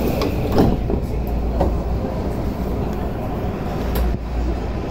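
Steady low rumble of a subway train standing at a station platform, heard from inside the car, with a sharp thud about half a second in as the doors close. A few faint clicks follow.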